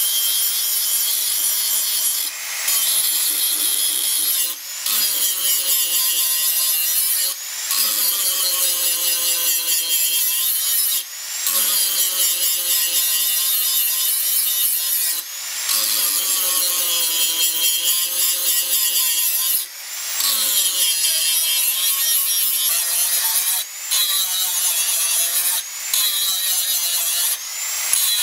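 Handheld angle grinder with an abrasive disc grinding rusty blade steel. The motor's whine sags under load and rises again, with short breaks every few seconds.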